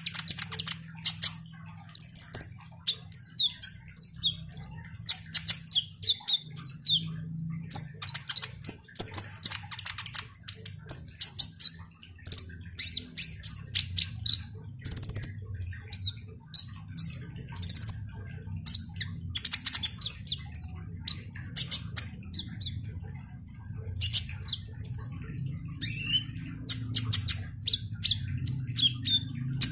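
Caged male kolibri ninja sunbird singing a busy, chattering song. It runs in bunches of high chirps, short trills and quick rising and falling whistles with brief pauses, and one sharper held whistle about halfway through.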